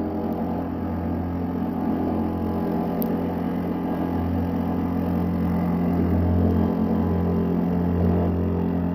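Wadkin pillar drill running, its cutter routing a trench across a wooden stair string: a steady motor hum with the rough noise of the cutter chewing through wood, swelling and easing a little as the cut is fed.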